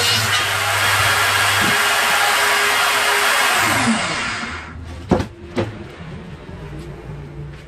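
Circular saw mounted under a homemade saw table, running and cutting a thin wooden board. About four seconds in its pitch falls and the noise dies down, then two sharp knocks as the cut wood is handled on the table.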